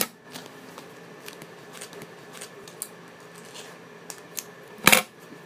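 Scissors cutting the tags off a new motorcycle helmet: light clicks and rustling of the tags, with a loud click at the very start and a loud sharp snip about half a second before the end.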